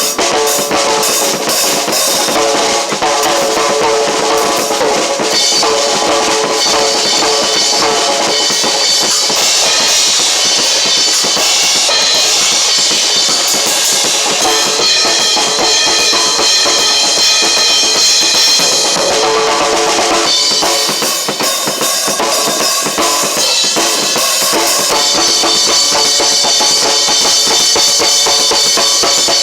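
Drum kit being played, with bass drum and snare, together with other music that holds sustained pitched tones.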